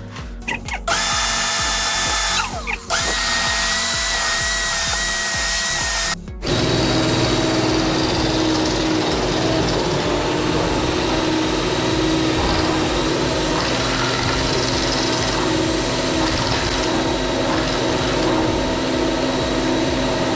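Electric drain-cleaning machine running its spinning shaft into a grease-clogged P-trap. A steady motor whine for the first few seconds, a brief stop, then a rougher, louder running as the shaft grinds through the packed grease.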